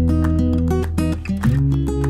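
Background music: a plucked-string tune over a steady bass note, the bass and chord changing about one and a half seconds in.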